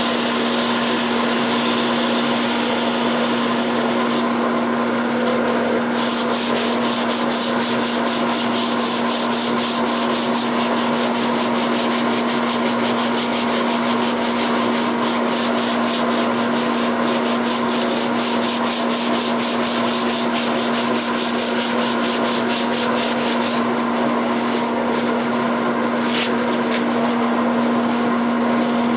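Walnut handle spinning on a Record Power Harald lathe with abrasive rubbing against the wood, over the steady hum of the lathe's motor. From about six seconds in until near the end, a fast, even ticking runs through the rubbing.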